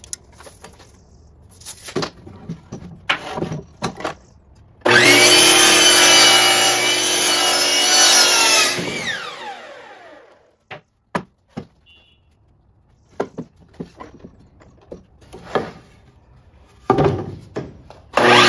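Hitachi electric miter saw switched on about five seconds in and cutting a 2x4 to length for about four seconds, then winding down with a falling whine once the trigger is released. Clicks and knocks from the board and tape measure being handled come before, and the saw starts again at the very end.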